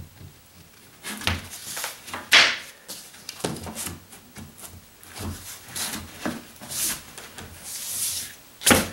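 Particleboard furniture panels being pressed together by hand onto wooden dowels: a series of irregular knocks, scrapes and rustles, with a sharper knock near the end.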